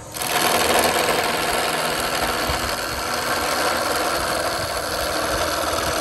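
Shopsmith PowerPro lathe running at about 1275 rpm while a gouge rough-turns a fir spindle blank, the tool knocking on the flat spots of wood that is not yet round. After a brief break just at the start, the cutting goes on steadily.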